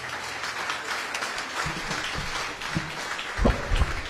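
Audience applauding. A few low thumps about three and a half seconds in come from a handheld microphone being handled as it changes hands.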